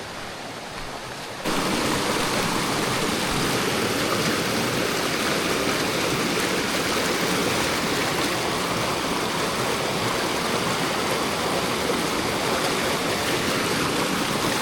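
Fast-running stream rushing steadily. The noise is quieter at first, jumps up suddenly about a second and a half in, then holds steady.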